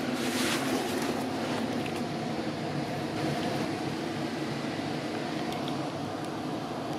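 Steady running noise of a GO Transit commuter train coach in motion, heard from inside the passenger cabin: an even low rumble and hum, with a brief hiss about half a second in.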